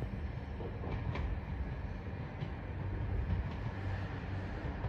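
Red Meitetsu electric train on the line, a steady low rumble with a few faint clicks from its wheels on the track.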